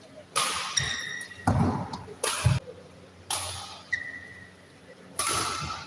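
Badminton rackets striking the shuttlecock in a rally, about five sharp hits a second or so apart, each ringing on in the echo of a large hall. Short high squeaks of shoes on the court floor and a few low footfalls come between the hits.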